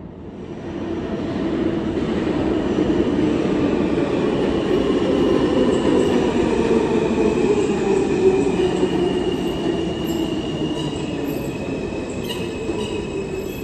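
R160-series New York City Subway train pulling into the station on the far track: a rising rumble of wheels on rail as it comes in, with a motor whine that falls in pitch as it slows. High brake and wheel squeals come in near the end.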